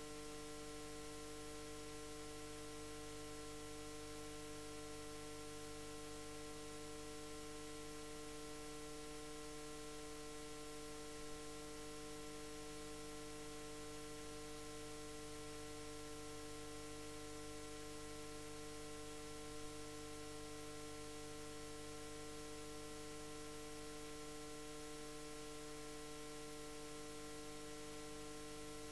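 Steady electrical hum made of several fixed tones, over a constant hiss. It does not change, apart from two faint brief blips midway.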